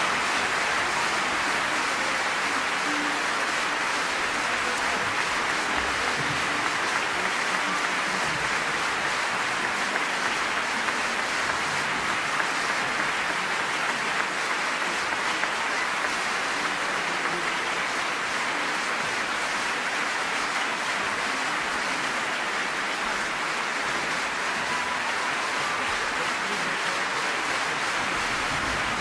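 Steady, even rushing noise with a fine crackle in it, with no tune or voice.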